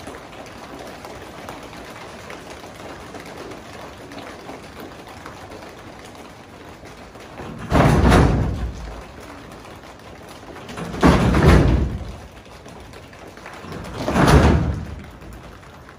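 Three loud rumbling booms, each about a second long and about three seconds apart, over a soft steady patter: staged thunder in a rainstorm scene.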